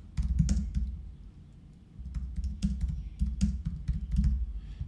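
Typing on a computer keyboard: two quick runs of keystrokes with a pause of about a second between them.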